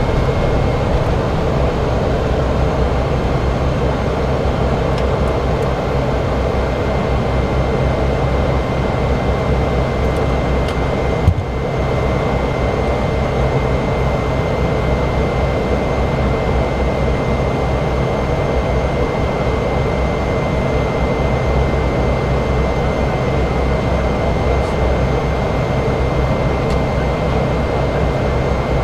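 Cessna Caravan's PT6A turboprop engine and propeller running steadily, heard from inside the cockpit as a low drone with a thin steady high whine over it. A single brief click about eleven seconds in.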